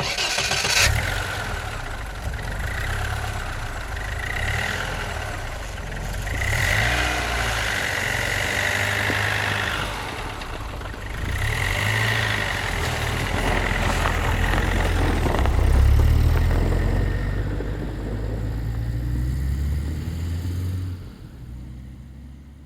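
Car engine running with a low rumble that swells and eases several times, loudest about two-thirds of the way through, then fades out near the end.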